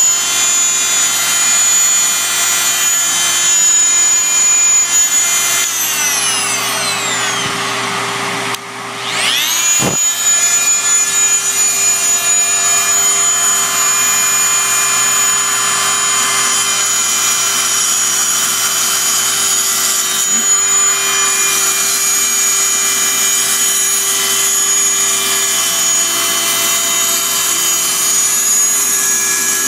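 Fein Multimaster oscillating multi-tool with a round grout-removal blade running against tile grout, a steady high whine. About six seconds in it slows down with falling pitch, then about nine seconds in it sweeps quickly back up to full speed and runs steadily on.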